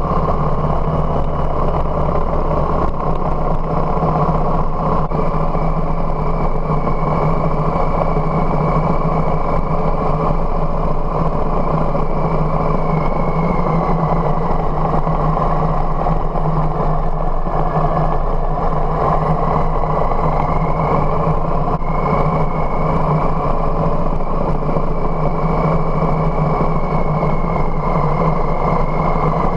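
Harley-Davidson Softail Heritage's V-twin engine running steadily on the move, with wind and road noise over it.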